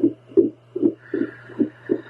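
A woman's heartbeat picked up through a home Doppler, heard as rapid, evenly spaced whooshing pulses at about two and a half a second over a steady low hum.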